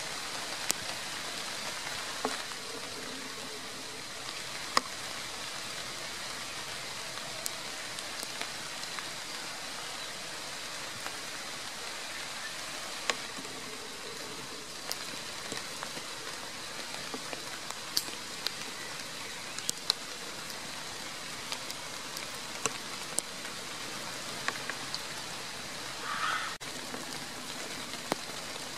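Steady rain falling, with scattered sharp ticks throughout. Near the end there is one brief higher-pitched sound.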